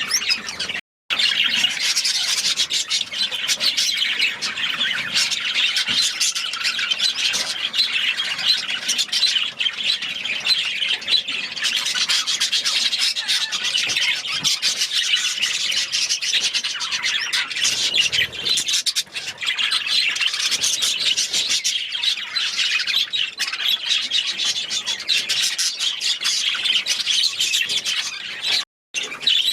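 Many small caged birds calling together in a dense, continuous chatter of chirps and squawks, cut by two brief silences, about a second in and near the end.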